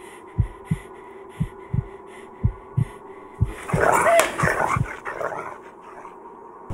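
Heartbeat sound effect: paired low thumps about once a second. About three and a half seconds in, a harsh growl rises over it for a second and a half, and a sharp hit comes at the very end.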